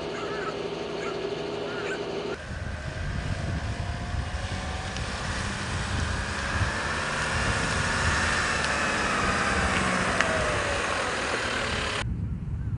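A motor vehicle's engine and road rumble, its tone rising and then falling slowly over several seconds as it passes. Before it, for the first couple of seconds, there is a steady hum with short high calls. The sound changes abruptly twice, about two seconds in and near the end.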